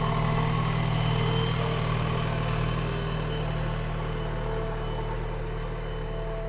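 JCB 3DX backhoe loader's diesel engine running steadily at low revs, with a few faint higher tones drifting over its hum.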